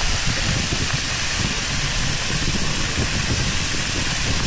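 Small waterfall pouring over rocks into a pool: a steady rush and hiss of falling water, with a low rumble underneath.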